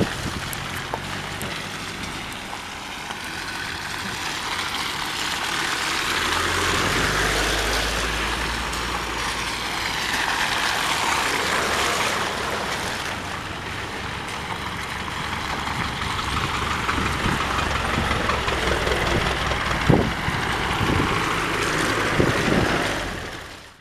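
Land Rover off-roaders, a Defender and a Discovery 3 among them, driving slowly past one after another on a wet muddy lane: engines running and tyres rolling through mud and gravel, the sound swelling and fading as each vehicle goes by, with a few sharp clicks near the end.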